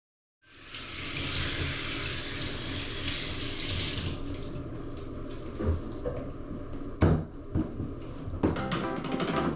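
Running water, loudest for the first few seconds and then running more quietly, with a few knocks. Music with a drum beat comes in near the end.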